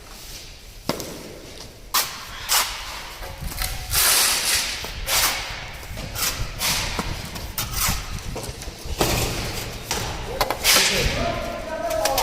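Irregular knocks and thuds, with short bursts of hissing or scraping noise between them.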